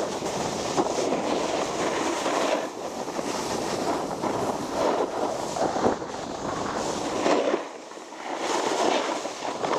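Snowboard sliding and scraping over packed snow at speed, with wind rushing over the camera microphone. The scraping eases briefly about eight seconds in, then picks up again.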